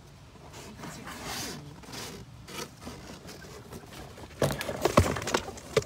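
Rustling and scraping as chickens are moved into a wire crate, then a quick run of sharp knocks and clatters about four and a half seconds in.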